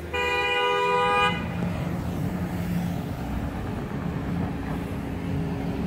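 A car horn gives one steady toot lasting about a second, followed by the steady noise of passing road traffic.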